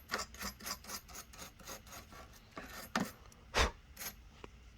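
Quick scrubbing strokes of a brush over a small DVR cooling fan, cleaning off built-up dust that makes the fan noisy. The strokes come about five a second at first, then more slowly, with two louder strokes near the end.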